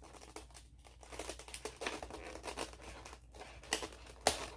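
Packaging being handled: plastic wrap and tape crinkling and tearing in a steady run of small crackles, with a couple of sharper clicks near the end.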